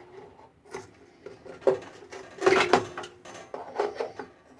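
Handling clatter from fitting a spool of welding wire into a small wire-feed welder's case: a run of separate knocks and rattles, loudest in a cluster about halfway through.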